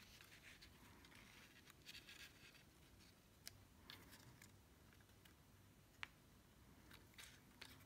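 Near silence with faint rustles and small clicks of cardstock being handled and folded, including a sharper click about six seconds in.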